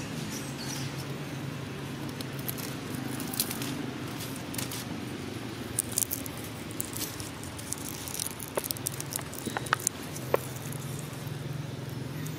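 Scattered small clicks and crackles of a young long-tailed macaque picking at a split coconut's husk and eating, a few sharper ticks standing out, over a steady low background hum.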